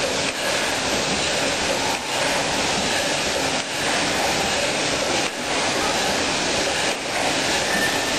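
Factory machinery running with a steady, loud hiss-like noise that dips briefly at a regular beat, about once every 1.7 seconds, as the machine cycles.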